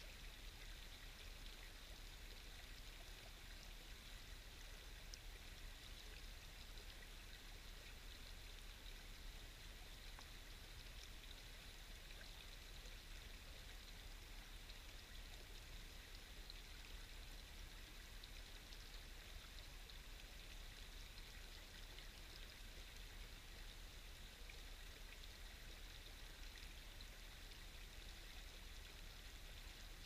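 A small stream running: a faint, steady babble of water.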